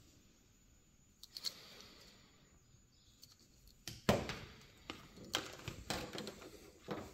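Plastic clicks and rattles of a windshield wiper blade's connector being handled and slid onto the hook of the wiper arm: a couple of light clicks, then a sharper click about four seconds in followed by a cluster of clicks.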